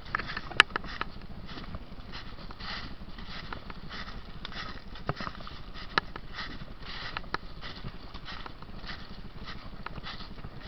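Footsteps crunching through dry leaf litter at a steady walking pace, with a few sharp snaps of sticks underfoot, the loudest about half a second in.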